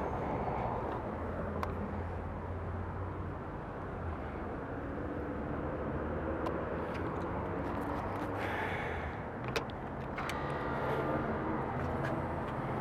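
Low steady vehicle-like hum over outdoor background noise, with a few light clicks.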